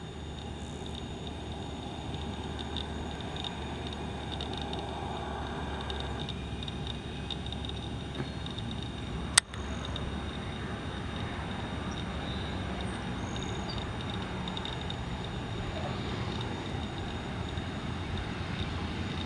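Cessna 208B Grand Caravan's single turboprop engine, a steady drone as the aircraft comes in to land and rolls along the runway, growing slightly louder towards the end. A single sharp click about nine seconds in.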